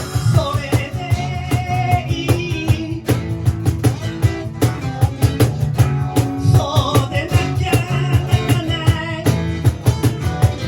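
A live rock band playing: a drum kit keeping a fast, even beat under guitar, with a wavering melody line on top.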